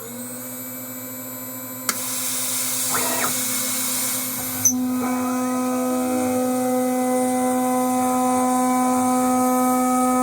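CNC milling machine spindle spinning up and running with a steady whine of several tones. A hiss, most likely the cooling air blast, switches on with a click about two seconds in. It drops away with another click near five seconds, after which the spindle whine runs steady and louder.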